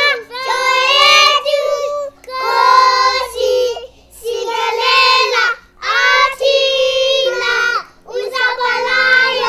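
Children singing without accompaniment, in short phrases of one to two seconds with brief pauses between them.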